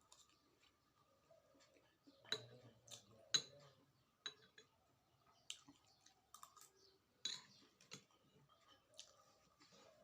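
Quiet mukbang eating sounds while eating momo: a scattered string of sharp clicks and smacks, about seven of them, the loudest about three seconds in.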